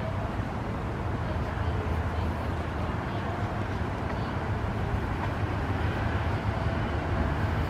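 Steady outdoor background noise with a low rumble, with no single event standing out.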